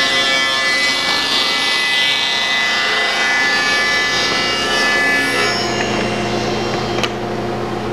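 SawStop table saw ripping a long board: the blade runs with a steady whine under a dense cutting noise. The cutting noise eases off a little past halfway, leaving the saw running, and there is a sharp click near the end.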